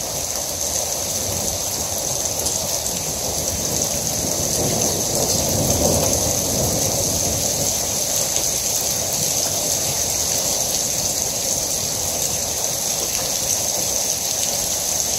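Heavy rain pouring steadily onto pavement and a car roof, growing a little louder around the middle.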